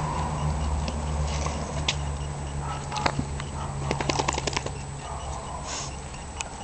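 Two dogs playing on a tiled floor: a quick run of sharp clicks and taps about four seconds in, with scattered single clicks before and after, over a low steady hum that fades out about five seconds in.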